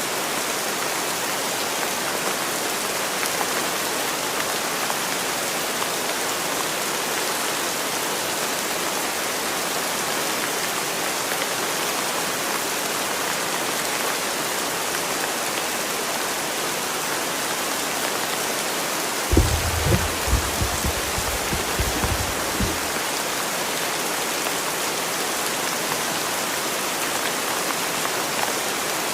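Steady rain, an even hiss of falling rain. About two-thirds of the way through, a few seconds of low, irregular thumps and rumbles rise above it.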